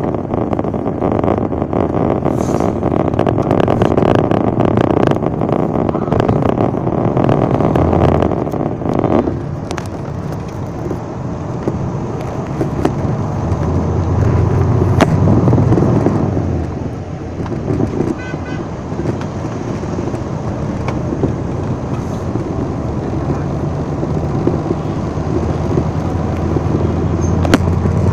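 Steady road and engine noise from a moving vehicle, mixed with the traffic of motorbikes and scooters riding alongside.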